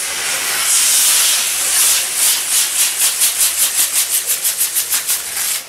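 Ground firework gerbe burning with a loud, steady hiss that about two seconds in starts pulsing about five times a second as it spins; the hiss cuts off abruptly near the end.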